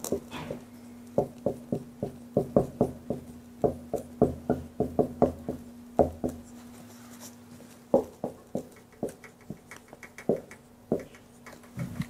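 Dry-erase marker writing on a whiteboard: a quick, irregular run of short squeaks and taps, several a second, as letters are written, with a steady faint hum underneath.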